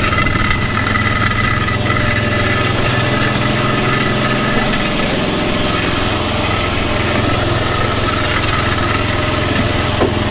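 Small engine of a ride-on garden tractor running steadily under load as it tows a burnt-out motorbike frame on a rope, the metal frame scraping along the tarmac path.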